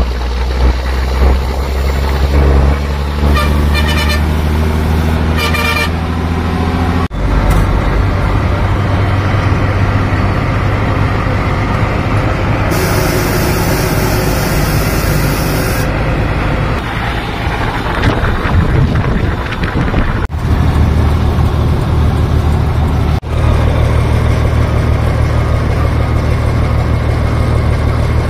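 Old military trucks' diesel engines running on the road, heard from inside an open cab. The engine climbs in pitch as it speeds up at the start. Two short horn toots come a few seconds in, and a high hiss lasts about three seconds midway.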